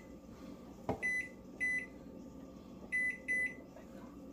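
Electronic keypad of a kitchen appliance timer being set: a soft knock about a second in, then four short high beeps, one per button press, at uneven intervals.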